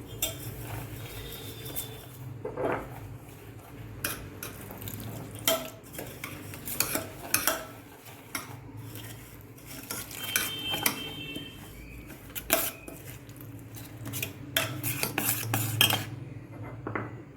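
A spoon stirring powdered rice flakes (aval) with coconut milk in a bowl, clinking and scraping irregularly against the sides as the idli batter is mixed.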